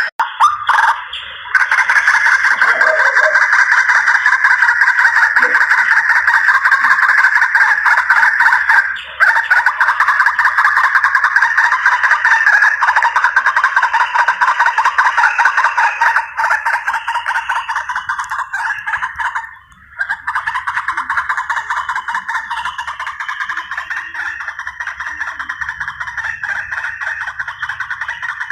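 White-breasted waterhen (ruak-ruak) calls, a loud harsh croaking chorus repeated rapidly almost without pause, with a few brief breaks. The recording is played as a bird-hunting lure call.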